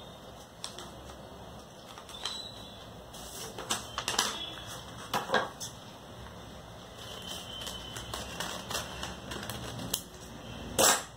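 Scissors cutting through folded paper: a run of irregular crisp snips and paper rustles, with one loud rustle near the end.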